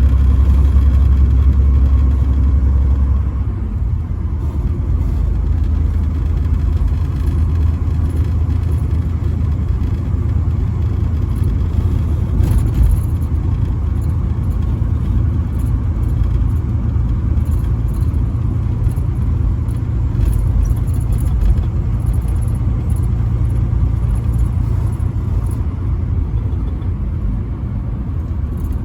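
Semi truck running at highway speed: a steady, deep engine drone with road noise. About three seconds in the lowest part of the drone drops in level and then holds steady.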